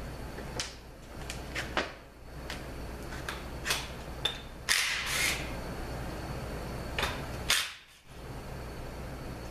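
Hand tools working bolts out of a 41TE automatic transmission case: scattered metallic clicks and knocks, with a short rasping burst about halfway through.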